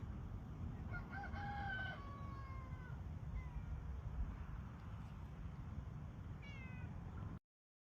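An animal calling: a drawn-out call held for about a second that then falls in pitch, and a shorter falling call near the end, over a steady low rumble. All sound cuts off abruptly near the end.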